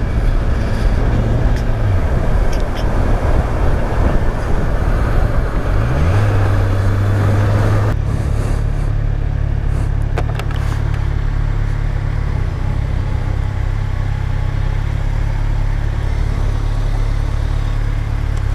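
Motorcycle engine running under wind rush while riding, its pitch dipping about two seconds in and rising again around six seconds. About eight seconds in the wind noise drops away and the engine settles into a steady idle while stopped in traffic.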